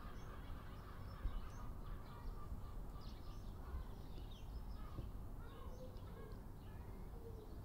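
Small birds chirping repeatedly over a low, steady outdoor rumble, with a brief thump about a second in.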